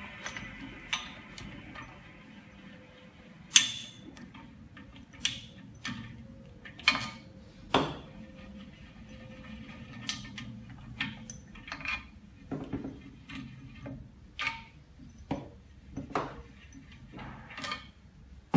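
Irregular clicks, clinks and knocks as the orange adjustable clamping levers are loosened and unscrewed from the door studs of an LCD-refurbishing autoclave and set down on the workbench. The loudest knock comes about three and a half seconds in.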